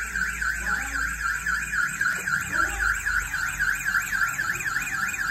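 Motion-sensor anti-theft alarm's siren speaker sounding a rapid warbling siren, sweeping up and down several times a second. The siren has been set off by a person moving in front of the motion sensor.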